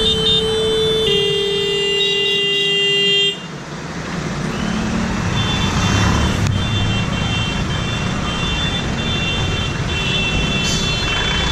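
Vehicle horns in stalled traffic: a long horn blast of about three seconds that drops in pitch about a second in and cuts off abruptly, then a higher-pitched horn sounding in a broken, stuttering run. Underneath, the low, steady noise of idling engines and traffic.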